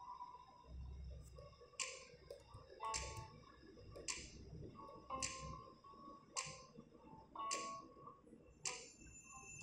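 Quiet stretch of background music: a soft ticking beat, about one tick a second, over faint held notes.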